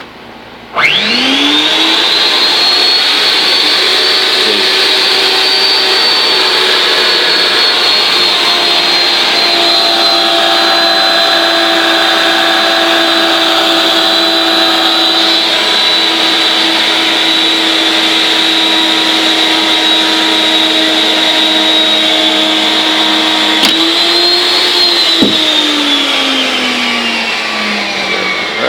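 Electric power pipe threading machine switched on, its motor whine rising quickly to speed, then running steadily under load as the die head cuts a thread on rigid steel conduit. Near the end the pitch lifts briefly, then the machine winds down with a falling whine.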